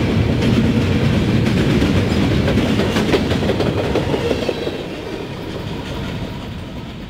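Freight train's covered hopper cars rolling past, steel wheels clacking on the rails. The sound fades away as the last car goes by, about four seconds in.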